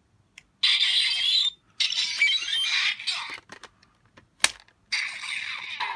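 Electronic sound effects from a home-built Kamen Rider Revice Vistamp toy played through its small speaker: three thin, hissy bursts with a few sliding tones, and a single sharp click between the second and third.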